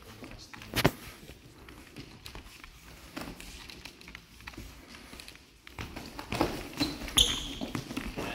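Two fencers sparring with training daggers: footwork and shoe scuffs on a wooden sports-hall floor, with a sharp knock about a second in. Near the end, as they close in to grapple, a busier run of knocks and scuffles with a brief high ring.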